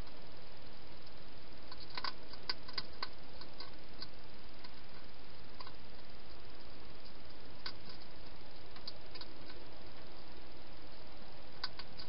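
Hedgehog eating from a bowl inside a plastic feeding box: scattered small clicks and crunches, a quick run of them about two seconds in and a few single ones later, over a steady hiss.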